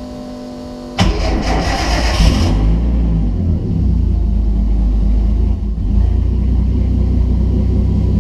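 Car engine started on a standalone ECU just after its ignition timing was set: after a brief steady hum it fires about a second in, flares up in revs, then settles into a steady idle.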